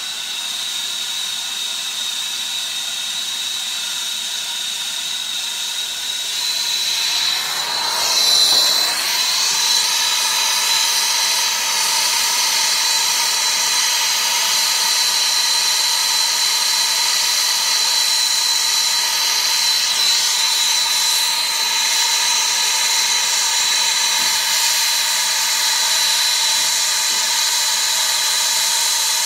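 Brazing torch flame hissing as it heats the copper refrigerant line joints on an air-conditioner compressor to unsweat them; the hiss grows louder about eight seconds in and then holds steady over a constant high whine.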